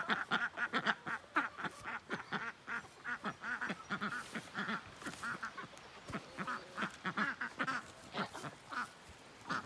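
A group of white domestic ducks quacking: a rapid string of short calls, busiest in the first few seconds and thinning out towards the end.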